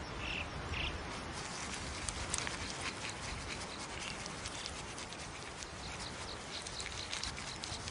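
Bearded vulture dust-bathing in iron-rich red soil: a steady scratchy rustle of feathers rubbing through dry dirt, with many small clicks and patters of grit.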